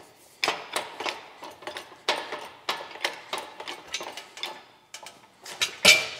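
Metallic clicking and clinking from the engine hoist's chain as the engine hangs on it and is lined up on its mounts, several irregular clicks a second, with one sharp, louder clank near the end.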